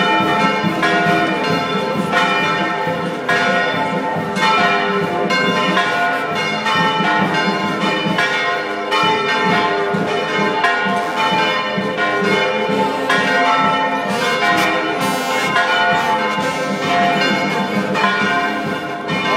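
Church bells pealing, struck again and again in quick succession, with their ringing overlapping.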